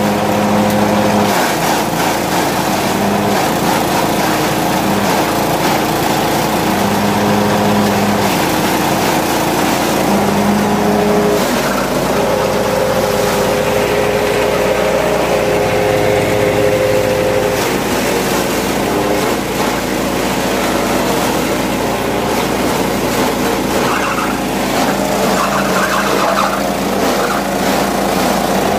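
Small single-cylinder petrol engine running a grass chopper (chaff cutter) as green fodder is fed in and cut into fine pieces. The machine runs loud and steady, and its note wavers as the engine takes up the load of the stalks.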